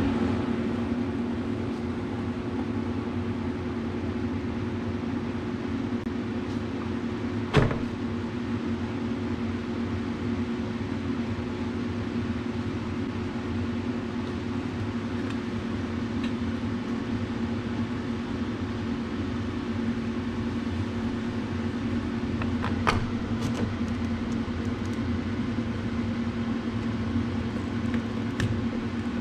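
Steady machine hum at an unchanging pitch, with a sharp knock about seven and a half seconds in and a few lighter clicks near the end as the rear window panel is fitted onto the Gator's cab frame.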